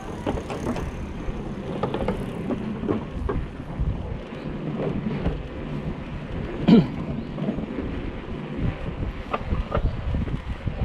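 Wind buffeting the microphone over the rumble and rattle of a mountain bike rolling across a wooden plank bridge deck, with scattered knocks and one louder knock about seven seconds in.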